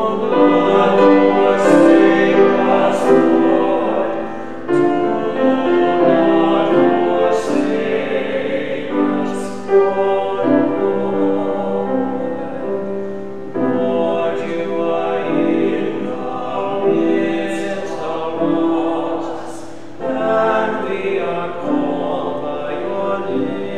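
Group of voices singing a slow, meditative Taizé chant in harmony, in long held phrases with short breaks between them.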